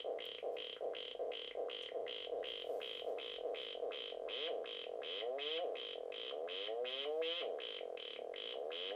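MFOS Noise Toaster DIY analog synthesizer pulsing in a steady rhythm of about four notes a second. About halfway through, its pitch starts sweeping upward over and over as its knobs are turned.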